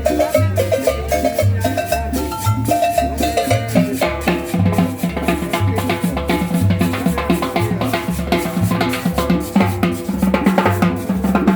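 Dance music with a steady drum-kit beat and a pulsing bass line.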